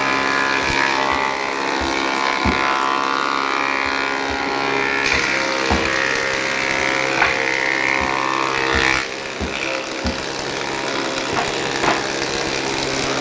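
A woodworking machine running with a steady hum and irregular knocks, with music over it. The sound changes about nine seconds in.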